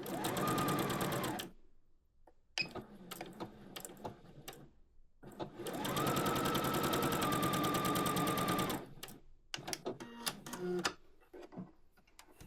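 Singer Heavy Duty HD6805C electric sewing machine stitching through muslin fabric in two runs: a short one at the start and a longer one of about three and a half seconds in the middle, each with a steady motor whine under the fast needle rhythm. Clicks and handling noises come between the runs and near the end.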